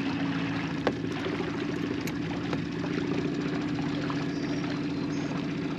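Small outboard motor on an inflatable dinghy running steadily at low speed, with water swishing along the hull. It cuts off abruptly near the end.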